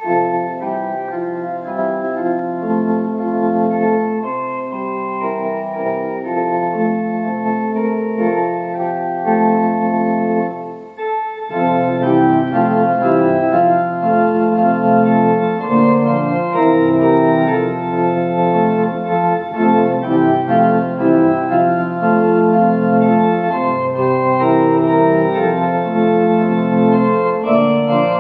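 Church organ playing a hymn tune in slow, held chords. About eleven seconds in it breaks briefly and comes back fuller, with deep bass notes added.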